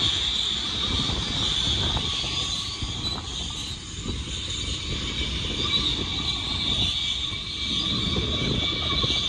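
Freight train cars rolling past: a steady low rumble with irregular clanking from the cars, over a constant high squeal from the wheels.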